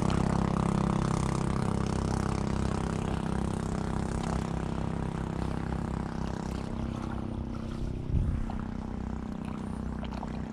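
A steady engine drone that slowly fades away, with a brief bump about eight seconds in.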